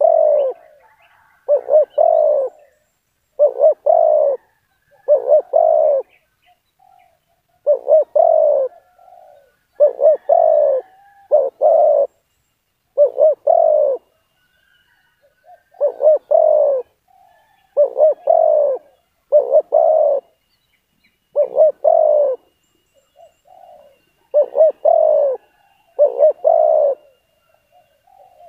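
Spotted dove (tekukur) cooing: a short two- or three-note coo phrase repeated about every one and a half to two seconds.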